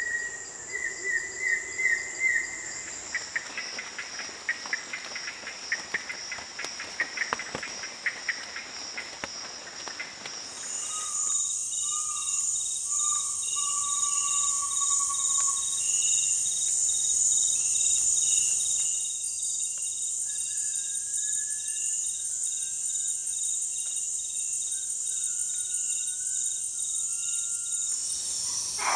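Amazon rainforest ambience: a dense chorus of insects with a steady high-pitched trill, and short whistled bird calls over it. Earlier on, a stretch of rapid crackling clicks and repeated bird notes, with the soundscape changing abruptly a few times as different recordings follow one another.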